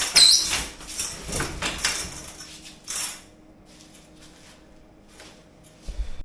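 Tools and equipment being moved and handled: a busy run of clattering and rattling for about three seconds, then a few scattered clicks and a low thump near the end.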